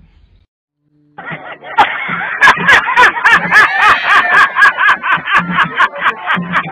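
Near silence for about a second, then loud music with a steady beat of evenly spaced thumps and clicks under a high, wavering melody.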